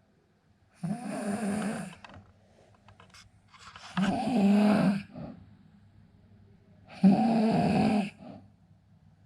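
A sleeping man snoring: three long, rasping snores about three seconds apart, each lasting about a second.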